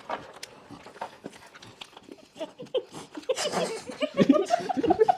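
Close-up wet smacking and chewing of people eating cake face-first with no hands: scattered small clicks. From about three seconds in come louder bursts of muffled laughter and mouth noises.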